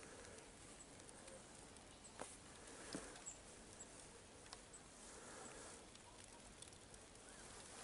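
Near silence: faint outdoor ambience with a few soft ticks and patters.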